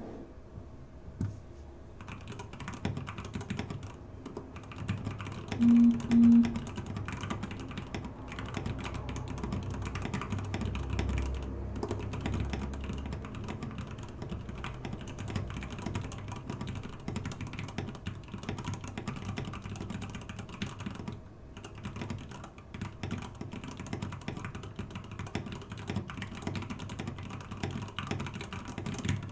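Custom mechanical keyboard with Gateron Yellow linear switches, thick PBT OEM-profile keycaps and clipped, lubed PCB-mount stabilizers in a wooden case, typed on steadily with a dense run of key clacks starting about two seconds in. About six seconds in come two short, loud low-pitched blips.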